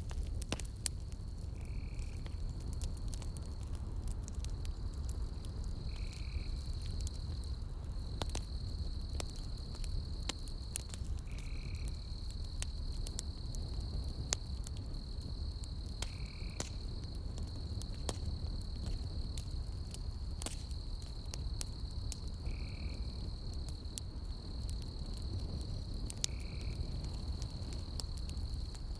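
Campfire logs burning, crackling with scattered sharp pops over a low steady rumble. Behind the fire runs a continuous high insect trill, and a short call repeats every four to six seconds.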